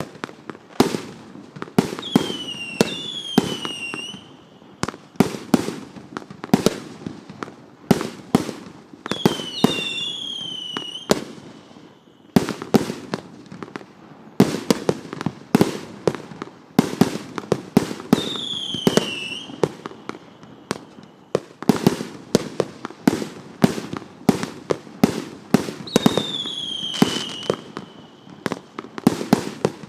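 Multi-shot fireworks cake firing: a rapid series of sharp shots and bursts with crackling from crackling stars. Four times a high whistling tone falls in pitch over a second or two.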